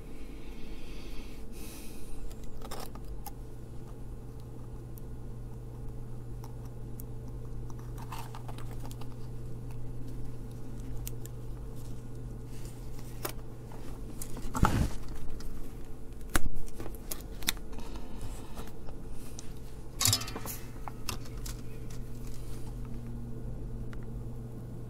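Small hand tools and electronic components being handled while building a circuit-board kit: scattered light clicks, taps and brief rustles over a steady low hum, with a louder rustle about 15 seconds in, a sharp click just after, and another short rustle about 20 seconds in.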